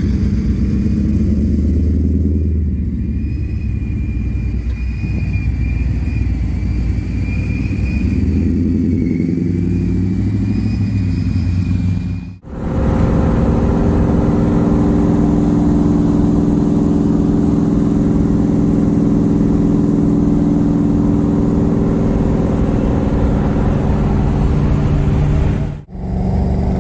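Ford SVT Lightning pickup's supercharged V8 revving and pulling away, with a steady high whine over the engine note. After a cut about halfway through, an engine runs at a steady, even pitch at constant speed.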